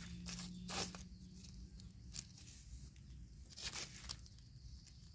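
Faint rustling and crunching of dry leaf litter and undergrowth in a few short swishes, about a second in and again near four seconds in, as someone moves through the forest floor.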